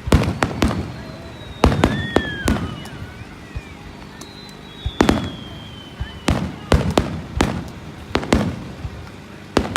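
Aerial fireworks shells bursting in quick succession: sharp bangs, often several close together, each with an echoing tail.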